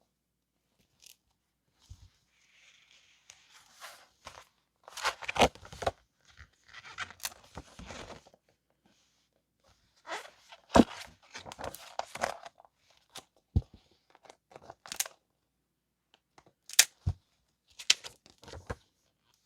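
Paper and plastic stationery packaging being handled close up: rustling, crinkling and tearing in irregular bursts, with sharp taps and clicks between quiet gaps.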